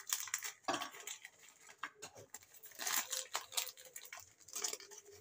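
Plastic Oreo biscuit wrapper crinkling and crackling in uneven spells as the biscuits are pulled out of the packet.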